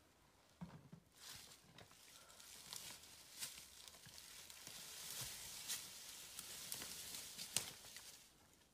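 Faint rustling and crunching of dry leaf litter, with a few sharp twig-like snaps spread through it; no engine is running.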